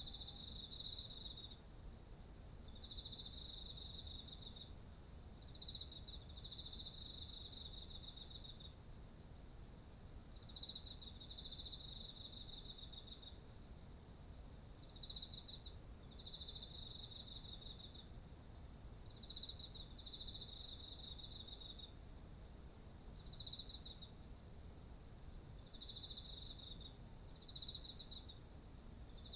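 Autumn insects singing together: a steady, unbroken high-pitched trill, with lower pulsed trills over it that come in phrases of a few seconds separated by short gaps.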